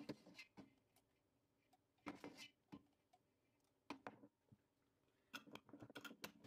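Quiet kitchen handling sounds: a ladle clinks against a glass jar as thick plum marmalade is spooned in, and the jar is set down on the counter about four seconds in. Near the end comes a quick run of small clicks and scrapes as a screw-on lid is twisted onto the jar.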